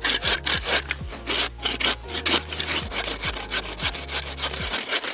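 Hand bow saw cutting through the trunk of a small live evergreen, in quick, even back-and-forth strokes of about three a second, felling the tree at the base.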